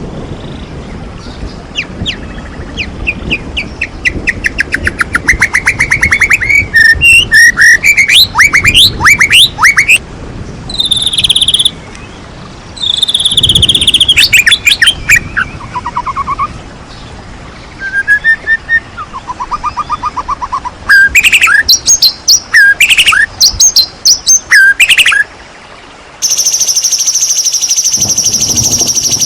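White-rumped shama singing loudly in fast, varied bursts: rapid trills, whistled slides and repeated chips, with short pauses between phrases. From about 26 seconds in, a steady, dense high-pitched buzzing trill carries on.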